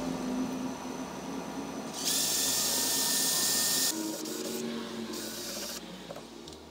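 Cordless drill boring through the rim of a perforated metal basket: a loud, harsh grinding for about two seconds, then a second, shorter burst of drilling about a second later.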